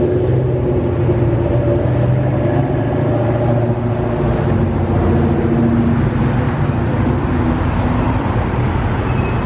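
Road traffic: several cars driving past close by, one after another, a steady mix of engine and tyre noise.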